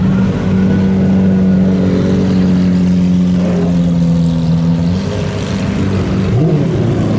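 Lamborghini Murciélago SV's V12 running steadily at low revs with a deep hum as the car rolls slowly past. About six seconds in, a following Ferrari flat-twelve gives a short rev blip.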